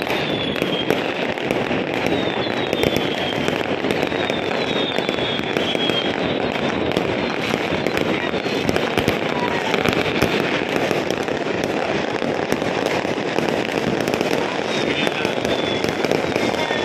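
Many fireworks and firecrackers going off at once, near and far: a steady, dense crackle of bangs, with a few short falling whistles near the start and again near the end.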